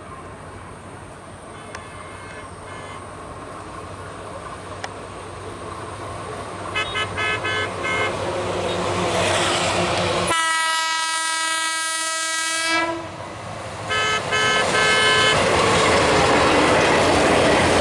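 Meter-gauge diesel locomotive's horn sounding in groups of short toots, faint at first, then one long steady blast about ten seconds in, then more short toots. The running noise of the approaching train grows steadily louder and is loudest near the end as the coaches pass.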